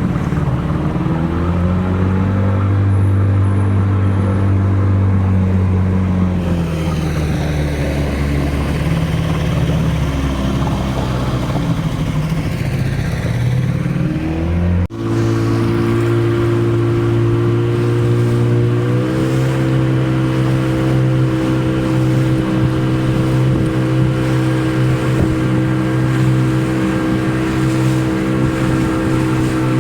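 A tour boat's engine running. Its pitch rises, eases off and climbs again, then, after a sudden break about halfway through, the engine runs steadily, picking up speed slightly a few seconds later.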